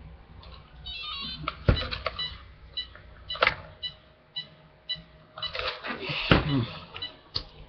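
Knocks and clicks of a Traxxas Stampede 2WD RC truck being handled on a bench, with several short, high electronic beeps between them.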